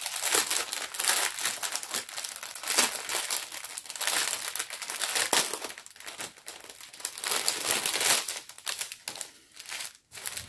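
Plastic packaging of a diamond painting kit crinkling and rustling as it is handled and opened, in irregular spurts that thin out about eight seconds in.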